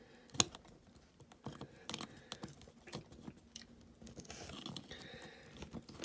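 Scattered light clicks and taps of a diecast model car and its plastic part being handled and pried apart, with one sharper click just under half a second in and a soft scraping rustle a little past the middle.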